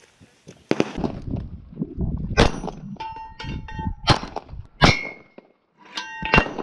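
Handgun shots fired in an irregular string, with steel gong plate targets clanging and ringing on as the bullets strike them.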